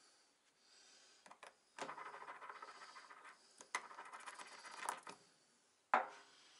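Small steel RB25DET oil squirter banjo bolt rattling and scraping between the fingers as its spring-loaded check valve is pumped to push oil through it. There are two stretches of this, each about a second and a half long, then a single sharp metallic clink about six seconds in.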